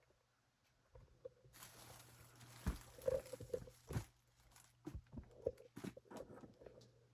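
Handling noises as an RC truck and its parts are worked on by hand: a rustle lasting a couple of seconds, then a series of sharp knocks and clicks, over a faint steady hum.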